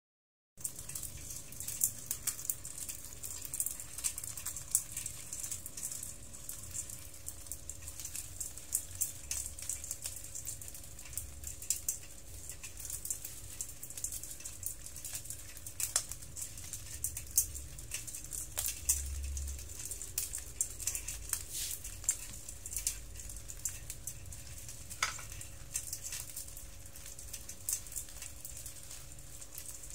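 Hundreds of small hermit crabs crawling over one another in a basin, their shells clicking and rattling against each other and the basin in a dense, continuous patter of tiny clicks. A faint steady hum sits underneath.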